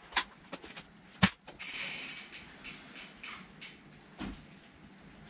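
Mountain bike rocking in a wooden manual-machine stand: a few light clicks, a sharp knock about a second in, and a short hiss. Then a run of evenly spaced ratcheting ticks, about three a second, from the rear hub, fading out.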